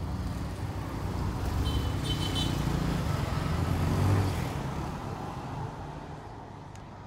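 A motor vehicle's engine passing close by, rising to its loudest about four seconds in and then fading away.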